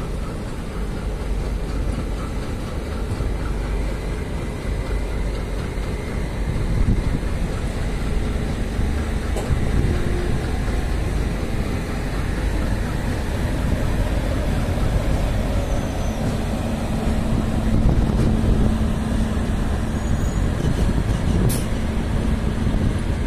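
Steady rumble of railway locomotives running in the station yard. A low, even hum joins in about two-thirds of the way through.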